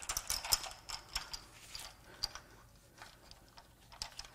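Irregular metallic clicks and clinks of hand tools on timing-chain parts at the front of a Cummins 5.0 turbo diesel V8 as the cam chains and tensioners come off, densest in the first second and a half and sparser after.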